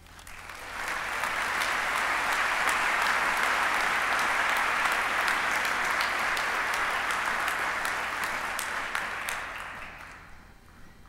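Audience applauding, swelling up over the first second, holding steady, then dying away near the end.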